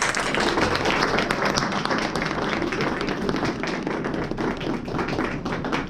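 A small audience applauding, many hands clapping at once.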